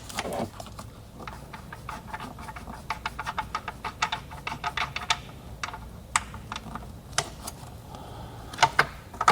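Ratchet wrench clicking in quick, irregular runs of ticks as it backs out a battery hold-down bolt, with a few separate clicks near the end.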